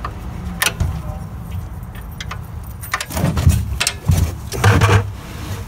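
Metal tool clinks and clatter as a wrench and engine parts are handled, a couple of sharp clicks near the start and a burst of irregular clanks about three seconds in, over a steady low background rumble.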